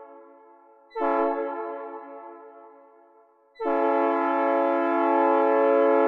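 Synthesizer recreation of a Nathan P3 "new cast" three-chime train horn, with reverb. An earlier note fades out, a short blast sounds about a second in and dies away, then a long steady blast starts about three and a half seconds in.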